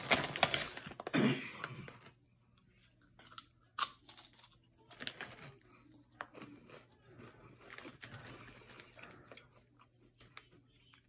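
A shiny plastic chip bag crinkling loudly as it is pulled open, then a ridged potato chip crunched and chewed with short crisp crunches through the rest.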